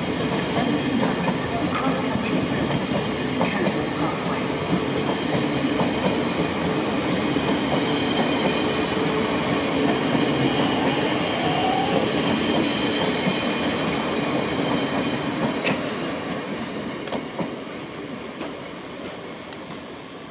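Thameslink Class 700 electric multiple unit running past on the track, its wheels clicking over the rail joints with a steady electric hum. The sound fades away over the last few seconds.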